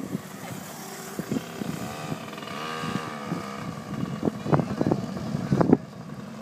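Small child's motorcycle running, its motor note rising and then falling back, with several sharp knocks scattered through, the loudest shortly before the end.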